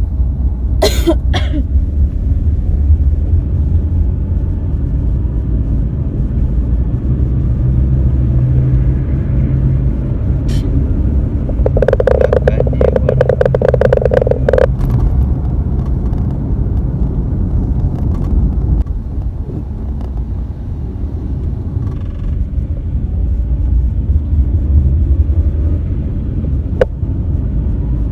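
Steady low rumble of a vehicle in motion. About twelve seconds in, a harsh buzz cuts in over it for about three seconds.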